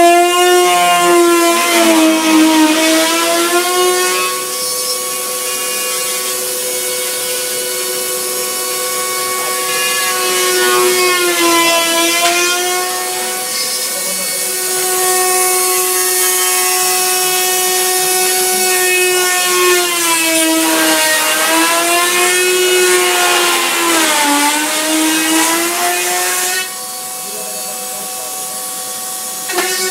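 Milling spindle on a KUKA KR15 robot arm whining as it cuts plastic, its pitch dipping and recovering several times. About 26 seconds in it turns quieter and its pitch holds steady.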